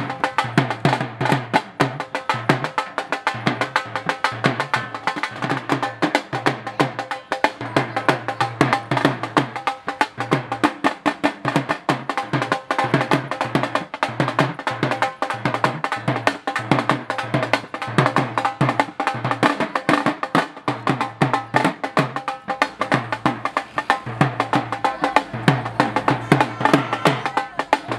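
Music driven by fast, dense drumming over a steady repeating low beat, with no clear singing.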